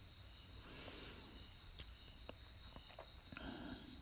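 Faint background noise: a steady high-pitched trill or hiss, with a few soft clicks.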